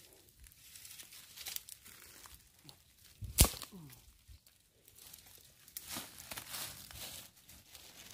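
Dry straw and twigs rustling and crackling as they are handled, with one sharp, loud snap about three and a half seconds in. Near the end, a plastic bag crinkling as it is handled.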